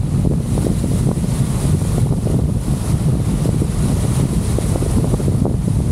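Strong stormy wind buffeting the camera's microphone: a loud, continuous low rumble broken by frequent short crackles from the gusts.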